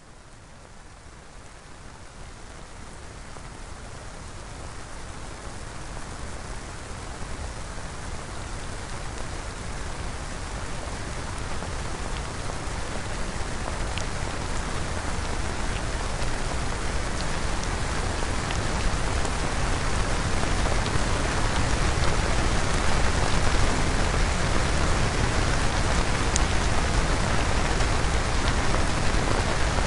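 Synthesized rain: an even hiss of falling rain with a few separate drop clicks, fading in and growing steadily louder for about twenty seconds before levelling off.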